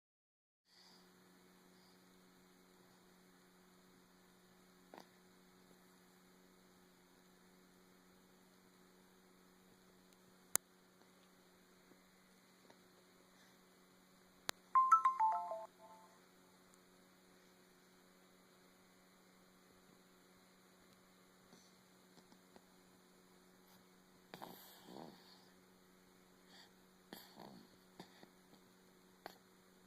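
Two soft snores near the end, over a steady electrical hum. About halfway through come a few sharp clicks and a short falling run of electronic tones.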